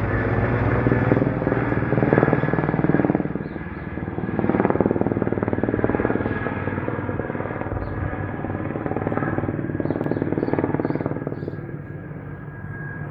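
Engine noise droning steadily, swelling and easing in loudness several times.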